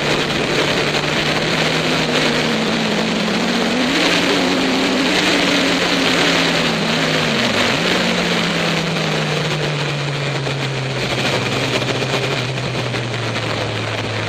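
Motorcycle engine running under way, mixed with heavy wind rush over the microphone. The engine note rises about four seconds in, dips sharply for a moment about halfway through, then sinks slowly toward the end.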